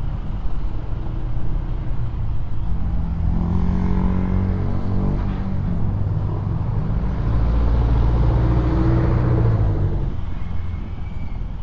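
Honda PCX 160 scooter's single-cylinder engine running while riding through slow city traffic, with rumble from wind on the microphone. The engine note picks up a few seconds in and is loudest between about seven and ten seconds in, then eases.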